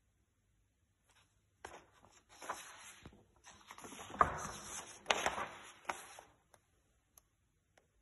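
Large sheets of paper rustling and crackling as they are lifted and turned over by hand. The rustling starts about a second in, with sharp crackles in the middle, and dies away after about six seconds, leaving a few faint ticks.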